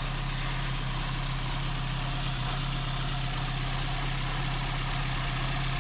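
Opel Vectra A's C18NZ 1.8-litre four-cylinder petrol engine idling steadily, just started and running with a newly fitted used Bosch alternator.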